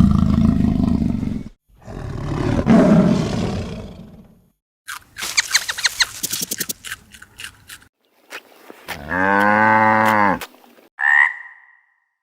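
A succession of different animal calls: two loud, rough, low calls lasting a second or two each, then a run of rapid clicking pulses, then a long, low call with a clear pitch that bends down and up, and finally a short high call near the end.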